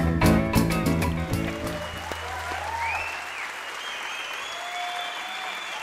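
A band's song ending on strummed guitar chords and a held low bass note, then an audience applauding with whistles, as at the end of a live recording.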